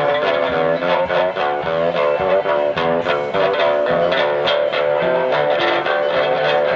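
Live blues: a guitar played flat across the lap, picked in quick runs of notes, with a fiddle bowing held notes along with it.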